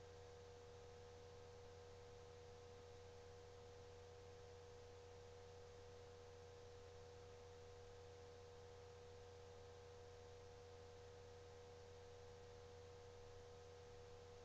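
Near silence: a faint steady hum with a thin high tone over even hiss, with no other sound.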